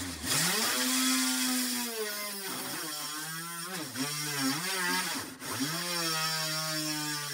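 Homemade mini drill press's DC motor drilling into a thin wooden board: its whine rises over the first second, then sags in pitch and recovers several times as the bit bites into the wood and the load eases.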